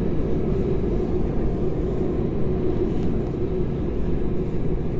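Steady engine and rolling noise heard inside the cabin of an Airbus A320 moving along the runway, with a steady hum over a low rumble.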